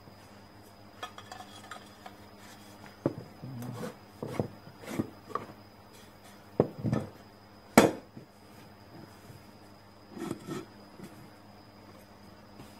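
Metal pipe handled on a workbench: scattered knocks, scrapes and clinks as it is moved, set down and picked up, with one sharp metallic clank about eight seconds in.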